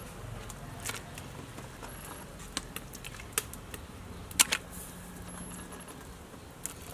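Scattered light clinks and taps of a metal spatula against a metal cooking pot as fish steaks are laid into the sauce, the sharpest about four and a half seconds in.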